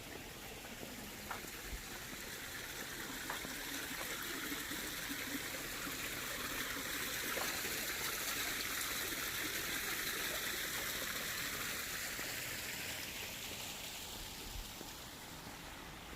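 Running water of a stream, a steady rushing that grows louder to a peak about halfway through and then fades away.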